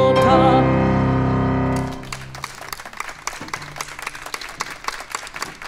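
The closing held chord of a song for soprano voice, cello, piano and trombone, which cuts off about two seconds in. Scattered, quieter hand-clapping follows.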